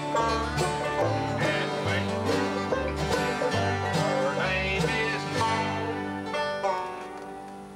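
Live bluegrass band: acoustic guitar and banjo, with a bass stepping through low notes and a man singing lead. The playing winds down in the last second or so and a final chord fades out.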